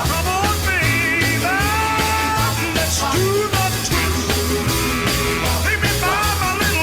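Rock music with a steady, driving beat and a lead melody that slides up and down in pitch.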